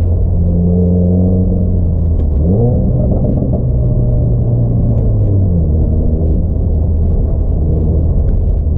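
Subaru WRX turbocharged flat-four engine and exhaust idling with a low rumble. About two and a half seconds in it is revved up to a steady higher speed, held for about three seconds, then let back down to idle.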